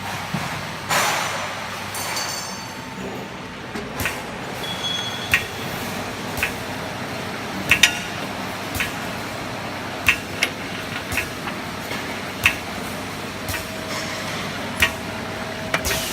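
Automatic perfume bottle filling and crimping machine at work: sharp clicks and glassy clinks of bottles and machine parts, irregular but about once a second, over a steady hum.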